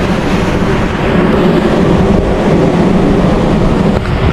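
Loud, steady street noise, a dense rumbling hiss with no single clear source standing out.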